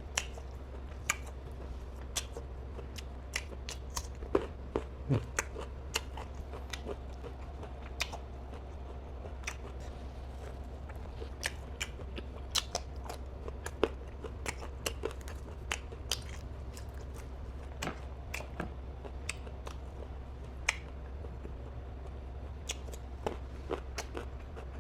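Close-up chewing and biting of nem chua, a fermented pork roll, eaten with garlic, chili and herb leaves: irregular sharp crunches and wet smacks, sometimes several in quick succession, over a steady low hum.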